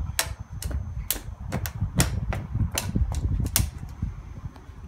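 A stick tapping irregularly on a weathered wooden picnic bench, about a dozen sharp knocks that thin out near the end, over a low rumble.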